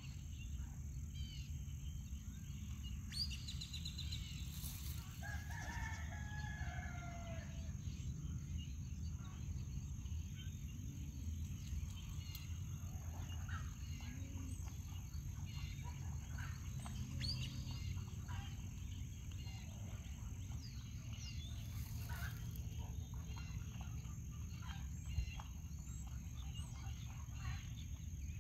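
A rooster crowing once, distantly, about five seconds in, with scattered short bird chirps over a steady low background rumble.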